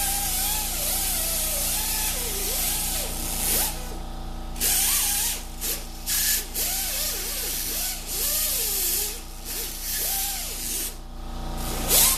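Several short bursts of hissing spray, starting and stopping repeatedly, over a steady low hum, with a faint wavering whine underneath.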